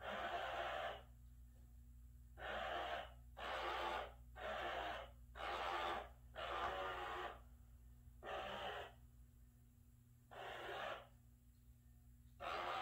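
Loud, raspy breaths or snores in about ten short bursts, each under a second long and spaced irregularly, with a faint steady hum underneath.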